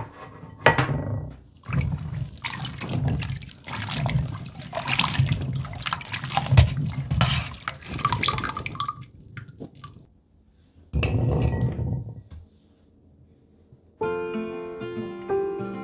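Water splashing and sloshing in a stainless steel sink as blueberries are rinsed and scooped out with a mesh strainer, in irregular bursts, with a pause and one more splash about eleven seconds in. Acoustic guitar music starts near the end.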